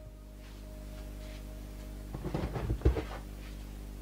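Handling noise as an electric nailer/stapler and its cord are picked up off a wooden tabletop: a few short knocks and rustles about two to three seconds in, over a steady low electrical hum.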